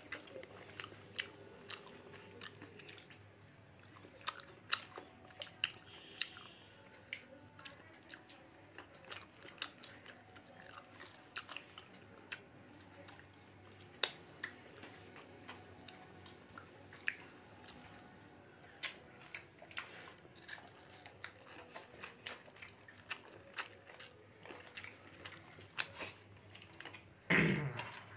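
A person chewing a mouthful of rice and curry eaten by hand, close to the microphone, with frequent irregular sharp lip-smacking clicks. A brief louder sound from the mouth comes near the end.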